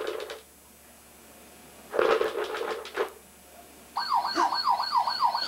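Battery-powered toy ambulance siren switched on about four seconds in: an electronic wail sweeping rapidly up and down, about three sweeps a second, over a thin steady high tone. Before it, two short clattering noises.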